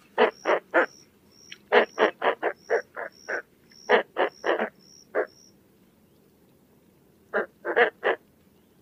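Roseate spoonbill giving short grunting calls in quick runs, about three or four a second, then a pause of about two seconds before a last run of three near the end.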